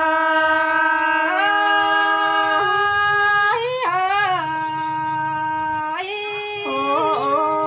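A woman singing a slow Thái folk song in long held notes, with short wavering turns in pitch about four seconds in and again near the end.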